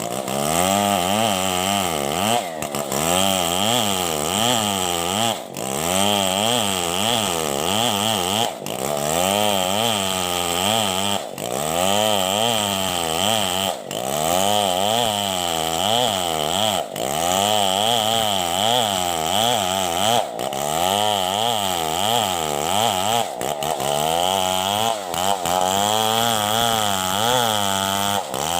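STIHL 070 two-stroke chainsaw running hard, its engine pitch rising and falling over and over as it cuts, with brief drops in sound every two to three seconds.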